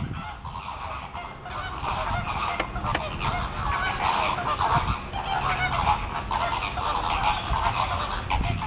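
A dense chorus of many birds honking and calling over one another without a break.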